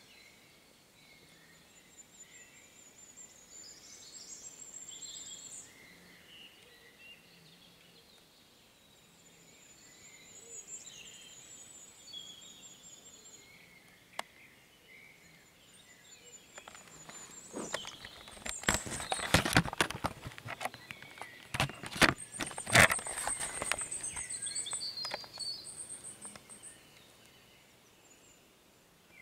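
Birds singing outdoors, with high buzzy trills and chirps recurring every few seconds. Past the middle a run of loud close knocks and crunching rustles lasts several seconds, movement right at the microphone.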